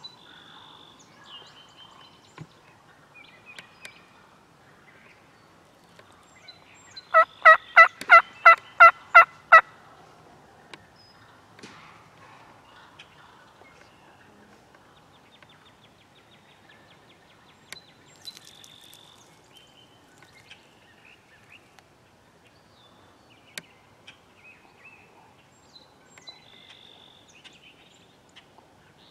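A run of about eight loud, evenly spaced turkey yelps, roughly three a second, lasting a little over two seconds, with faint small-bird chirps in the background.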